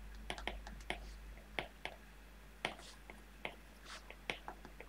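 Stylus tapping and scratching on a tablet screen as letters are handwritten: faint, irregular clicks, a few a second.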